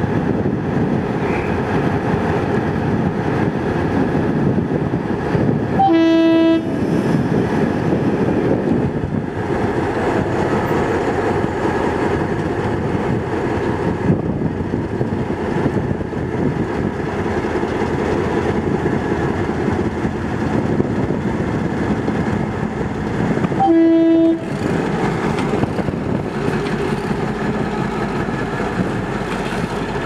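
EMD GR12 diesel-electric locomotive pulling a passenger train away from a station, its engine running under load. Its horn sounds two short single-note blasts, about six seconds in and again about eighteen seconds later.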